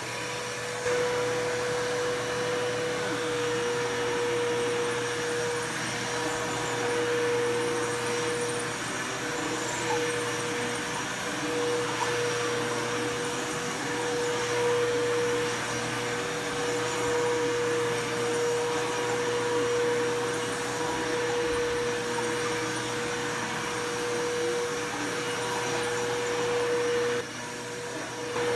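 Bissell PowerForce Bagless upright vacuum cleaner running steadily, with a constant high motor whine over a lower drone that wavers a little. The sound dips briefly about a second before the end, then comes back.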